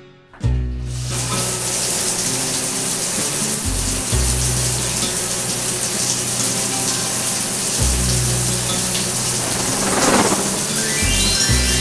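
Sound effect of a shower running: a steady spray of water, over low sustained music notes. A short whoosh comes about ten seconds in, and a rising run of musical notes enters near the end.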